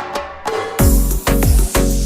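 Background music with a steady beat: after a short break, drums with a deep bass kick come back in a little under a second in, about two beats a second.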